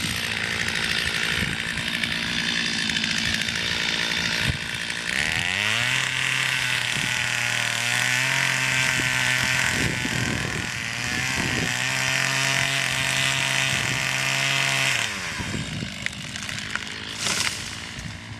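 Two-stroke chainsaw running, revved up about five seconds in and held at high speed for about nine seconds, then dropping back. This is the back cut in felling a tree.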